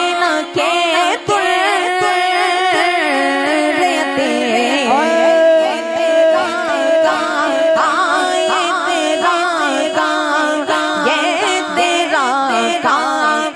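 Devotional naat music: a wavering, ornamented melodic line with a long held note near the middle, over a steady low drone.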